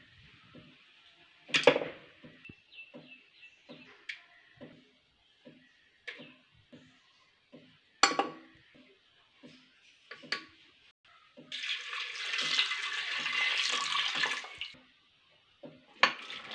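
Water pouring into an aluminium pressure cooker for about three seconds, between scattered knocks and clinks of ingredients and vessels set against the metal pot.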